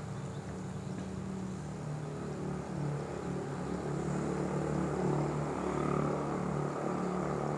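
Quadcopter drone's propellers humming steadily in flight, the pitch wavering slightly.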